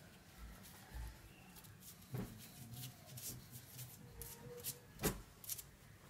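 Soft rubbing and rustling as a toddler's hands pat and rub a man's face, with scattered light clicks and two sharper taps, about two seconds in and about five seconds in.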